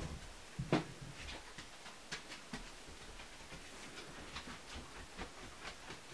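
Quiet handling noise: light, irregular clicks and taps as a needle-felted cat figure is held and turned by hand, with two louder knocks in the first second.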